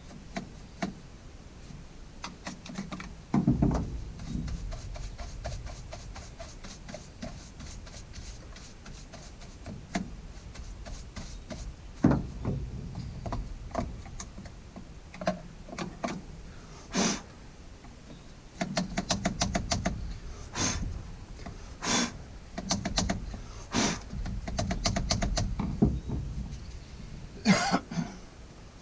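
Hands working on the bar and chain of an Oregon CS300 battery chainsaw: scattered clicks, knocks and light rattling of parts, with a few louder clatters in the second half.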